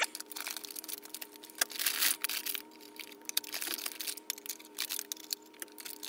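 Plastic sleeve crinkling and rustling, with light clicks, as a stack of plastic Petri dishes is pulled out of it and handled.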